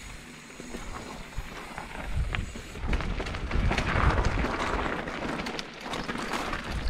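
Wind buffeting the microphone over a low rumble while riding a rough trail, with a crackling, rattling run of clicks that grows louder about three seconds in.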